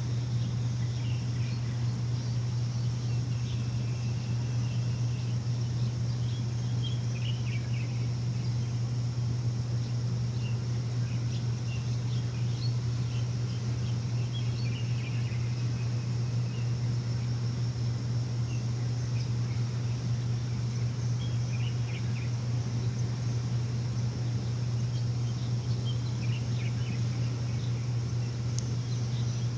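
A steady low machine hum with birds chirping now and then above it.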